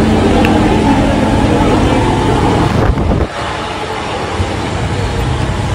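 Motor vehicle engine and traffic noise, steady, with a sudden change in the sound about three seconds in.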